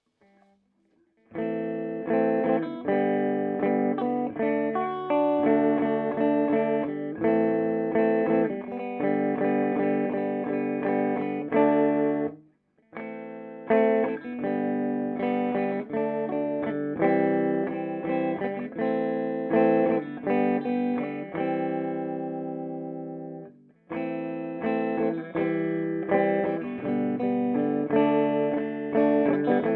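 Clean electric guitar played through a Peavey Bandit 112 combo amp's clean channel: picked chords and single notes, stopping briefly twice.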